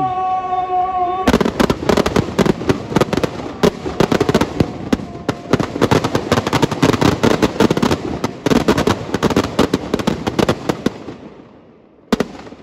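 Firecrackers packed inside a burning Dussehra effigy going off in a dense, rapid crackle of sharp pops. It starts suddenly about a second in and dies away near the end.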